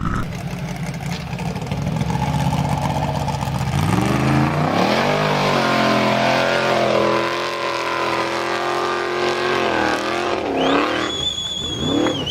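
Formula Offroad competition buggy's engine revving hard: the pitch climbs about four seconds in, holds at high revs, then dips and surges again near the end. A high, steady whistle-like tone comes in near the end.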